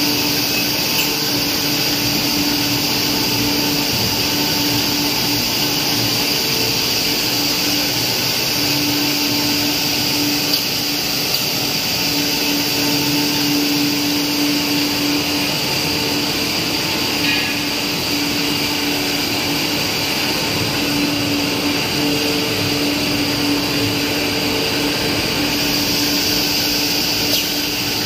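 A stretch film casting line running: a steady, even machine noise of motors, fans and turning rollers, with a hum that comes and goes.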